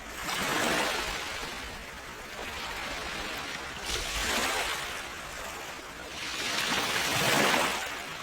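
Ocean waves surging in and washing back three times, each swell rising and fading over a second or two, over a steady hiss of rain.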